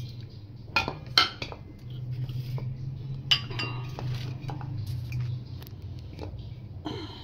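A ceramic plate clinking and knocking against a stainless steel bowl as dry ingredients are tipped off it: two sharp clinks about a second in, another at about three seconds and one near the end, over a steady low hum.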